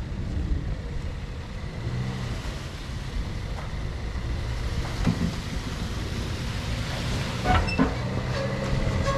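A vehicle engine running steadily, with a few short clunks about five seconds in and again near the end.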